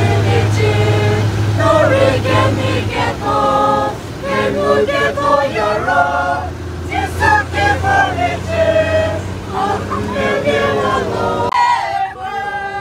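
A group of bus passengers singing together in chorus, loudly, over the steady low hum of the bus. The sound changes abruptly near the end.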